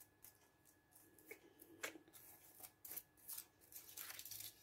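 Faint rustling and crinkling of paper, foil and a clear plastic sheet being handled, with scattered light ticks.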